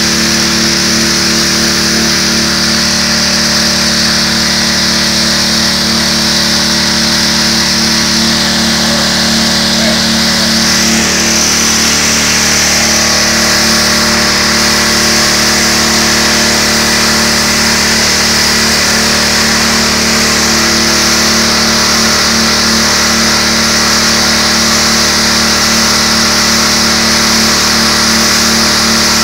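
Gas-engine pressure washer running steadily at full throttle, with the loud hiss of its high-pressure spray hitting concrete. The spray's hiss shifts a little about eleven seconds in as the wand is moved.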